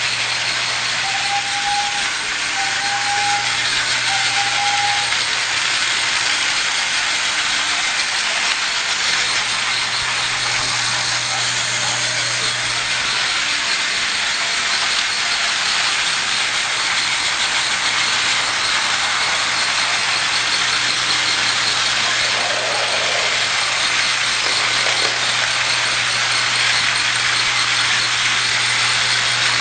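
Battery-powered TrackMaster toy train running on its track: a steady mechanical hiss with a low hum beneath, and three short, even tones near the start.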